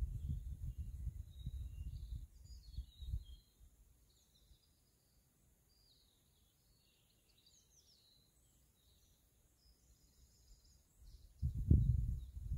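Small birds chirping and singing here and there. Low rumbling gusts of wind on the microphone for the first three seconds or so and again near the end are the loudest sound; between them it is quiet but for the birds.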